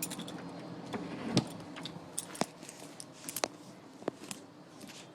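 A bunch of keys jingling in a door lock, with a handful of sharp clicks from the lock and handle as the door is unlocked.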